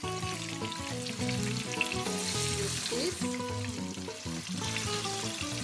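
Marinated fish pieces sizzling in a little hot oil in a frying pan as they are laid in skin side down, with background music playing over it.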